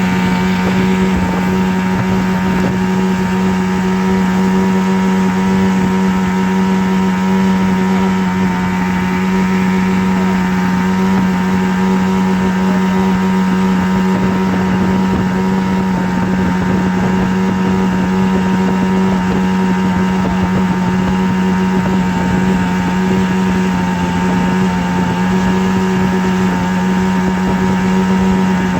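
A steady, unchanging mechanical-sounding drone with a strong low hum and a noisy, buzzing edge.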